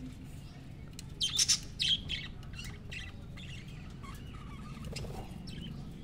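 Budgerigars chirping. A quick run of loud, sharp chirps comes about a second in, followed by softer, scattered chatter.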